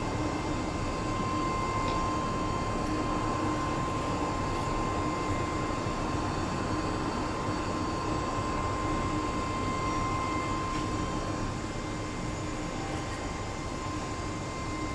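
Steady machinery drone with a constant high whine over it, dipping slightly in level near the end.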